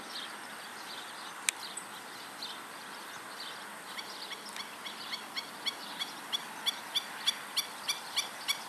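Black-necked stilts calling: a few scattered faint yips, then from about four seconds in a steady series of sharp 'kek' calls, about three a second, growing louder. There is a single sharp click about one and a half seconds in.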